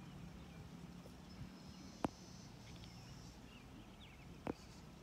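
Quiet open-air evening ambience with a low steady hum and faint, scattered bird chirps. Two sharp clicks cut through, one about two seconds in and one near the end.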